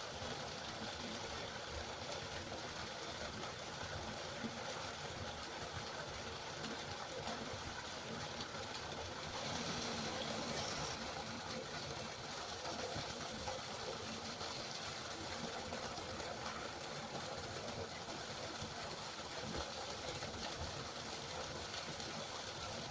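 River water flowing steadily, a continuous rushing noise that swells slightly for a second or two about halfway through.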